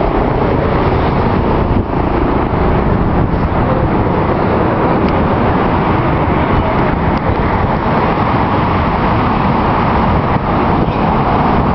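Steady wash of motor traffic on the bridge roadway, with no breaks or single standout events.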